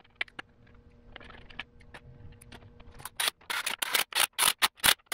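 Light handling clicks, then from about three seconds in a quick run of sharp clicks, about five a second, from a hand ratchet tightening the bolts of a plastic timing belt cover.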